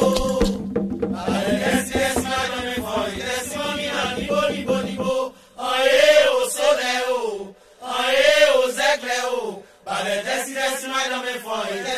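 Haitian Vodou chant for the lwa: sung voices repeating short melodic phrases. A percussion accompaniment runs under them until about five seconds in, then drops out, leaving the voices alone with brief breaks between phrases.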